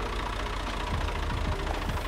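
Massey Ferguson 20F tractor engine idling steadily while the power steering is worked from side to side to bleed air out of the freshly refilled system.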